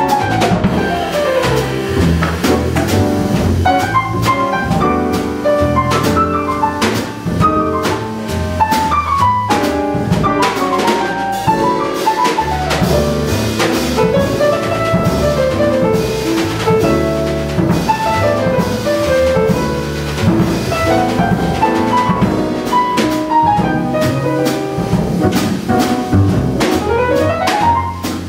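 Jazz piano solo with upright bass and drum kit accompanying, the piano playing fast runs that sweep up and down the keyboard.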